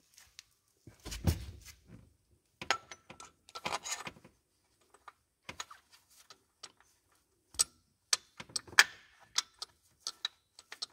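Irregular metal clinks and taps, some with a short ring, from handling and fitting a timing-belt tensioner pulley and its fixings with tools.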